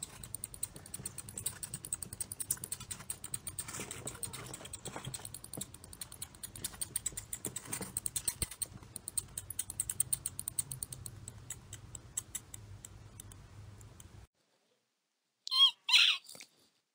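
Mouse sound effects: a rapid, light pattering of tiny scurrying feet that stops abruptly about fourteen seconds in, then two short, high mouse squeaks near the end.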